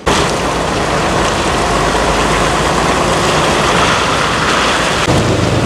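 Semi truck hauling a shipping container driving past on wet pavement: its diesel engine runs under a steady rushing tyre and road noise, and the low rumble deepens near the end.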